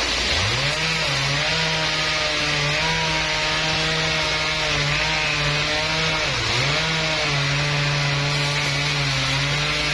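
A sawmill saw cutting through timber: a steady machine note over a dense cutting hiss. The note briefly drops in pitch and recovers at the start, about six and a half seconds in, and again at the end.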